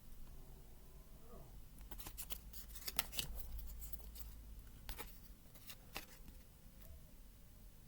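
Light handling of tarot cards and paper: soft clicks and rustles, a cluster of them about two to three seconds in and single clicks later on.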